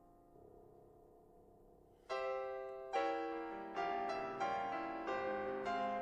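Grand piano playing classical music. Soft held notes fade for about two seconds, then a sudden loud chord comes in, followed by a run of strong chords about every 0.7 seconds.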